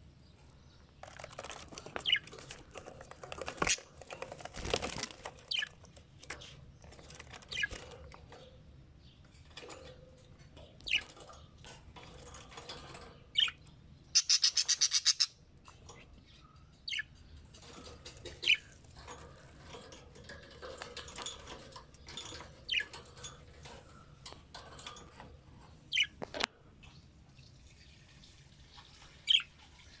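Pet budgerigars and a cockatiel chirping in a cage: short high calls scattered throughout, with one loud, harsh, rapid chatter lasting about a second and a half midway. A few sharp clicks come in between.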